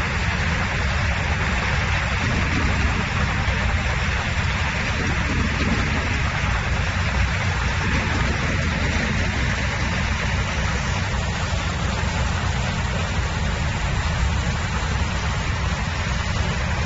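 ChenHan 4GQ-1B sugarcane harvester with its 180 hp engine running steadily: a constant low drone with an even hiss over it.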